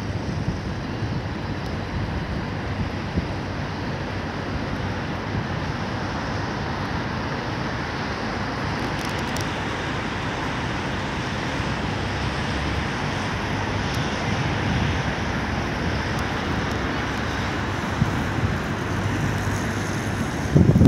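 Steady outdoor city ambience: a hiss of distant road traffic, with low wind rumble on the microphone that gusts near the end.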